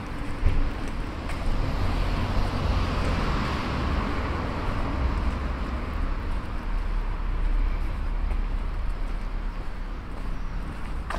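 A car passing on a city street, its tyre noise swelling about two seconds in and fading over the next few seconds, over a constant low rumble.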